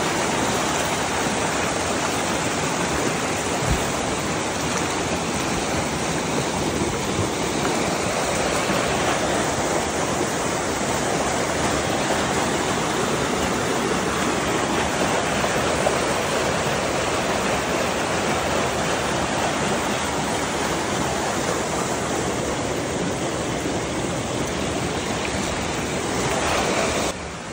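Shallow rocky creek rushing and splashing over stones in small cascades, a steady wash of water noise.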